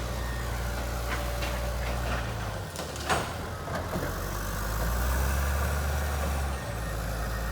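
Diesel engine of a heavy land-clearing machine running nearby, working harder and louder for a couple of seconds past the middle. A single sharp knock about three seconds in.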